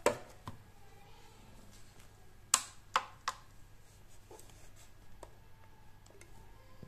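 Clicks of the push buttons on the Infinity Octabass 410 subwoofer's rear control panel being pressed: one sharp click at the start, three sharp clicks in quick succession about halfway through, then a few fainter clicks.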